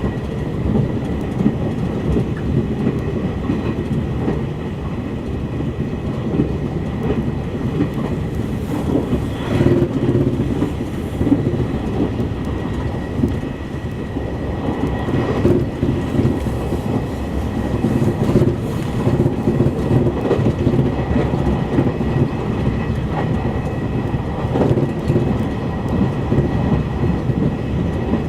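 E351-series limited express electric train running along the line, heard from inside the passenger car: a steady low rumble of wheels on rail with a faint steady high tone and occasional brief swells.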